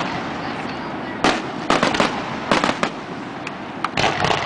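Aerial fireworks going off in a display: several sharp bangs and pops over a continuous noisy rumble, with a quick cluster of reports near the end.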